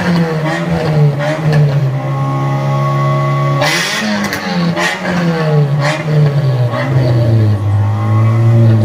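Car-engine-like revving: the pitch climbs and drops in quick steps like gear changes, holds steady for a while, and is broken by a short hissing burst about halfway. It climbs again and settles into a lower steady drone near the end.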